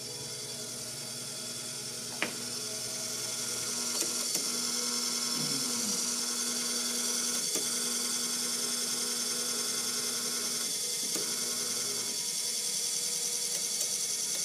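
Landice treadmill's elevation (incline) motor running, raising the deck to full incline: a steady electric motor whine with a few sharp clicks, about two seconds in and again around four, seven and a half and eleven seconds, and one tone that drops out about eleven seconds in.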